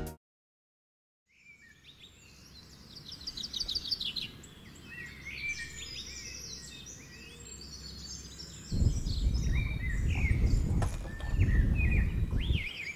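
Birds chirping and trilling, starting after a second or so of silence. About two-thirds of the way in, a louder low rushing noise comes in suddenly for about four seconds and then cuts off.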